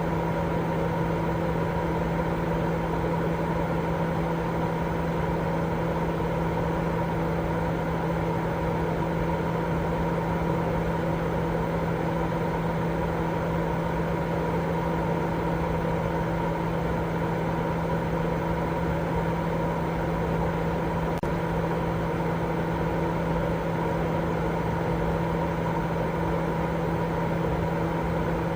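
Steady, unchanging sleep-aid white noise, heavier in the low and middle range than the highs, with a faint steady hum running through it.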